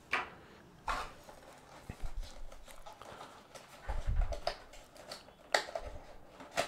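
Cardboard packaging being handled as a box is opened and its tray lifted out: scattered rustles and clicks, with a few low bumps about four seconds in.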